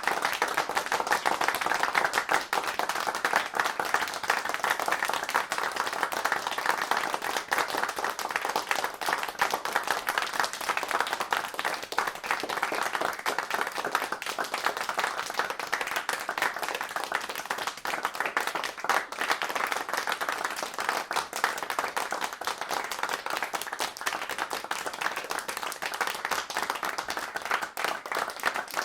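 Audience applauding: many people clapping, a dense, steady patter of claps with no break.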